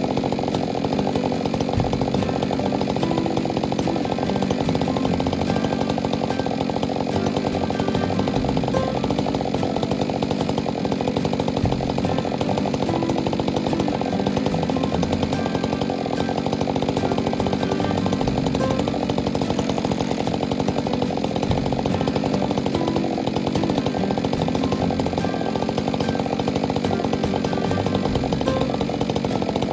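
Two-stroke chainsaw running continuously without letting off, cutting fir log.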